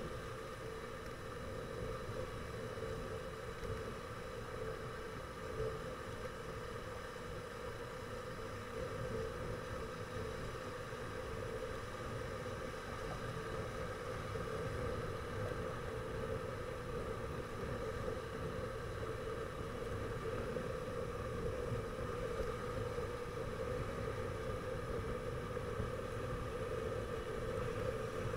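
Motorcycle riding at a steady speed: a constant engine hum mixed with wind and road noise, a little louder in the second half.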